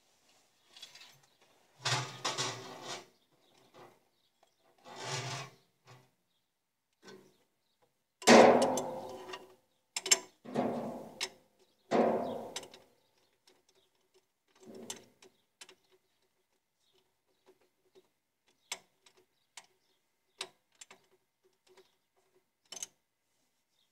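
Hand tools working on a Caterpillar 950F diesel engine's valve and injector gear: irregular knocks and rattles, the loudest about eight seconds in, then a string of small sharp clicks in the second half.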